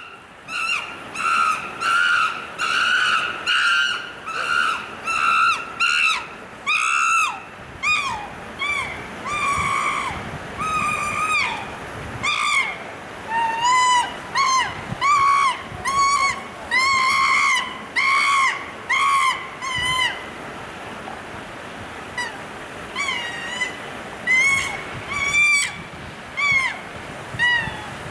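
Chimpanzee screaming over and over, about one to two high-pitched shrieks a second, each rising and then falling in pitch, with a lull of a few seconds about two-thirds of the way through.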